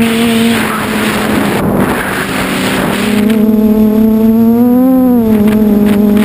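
QAV500 quadcopter's brushless motors and propellers humming at a steady pitch, heard through the onboard camera's microphone. From about half a second to three seconds in, wind rushing over the microphone buries the hum; later the motor pitch rises briefly around four and a half seconds in and falls back.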